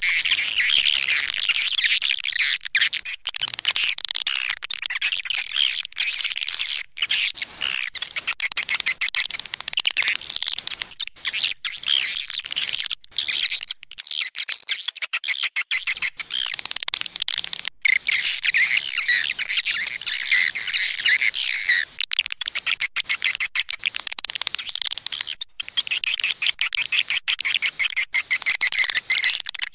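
Swiftlet call recording of the kind swiftlet farmers play to lure birds into a nesting house: a dense, continuous chatter of many swiftlets twittering and chirping, high-pitched, with a few brief gaps.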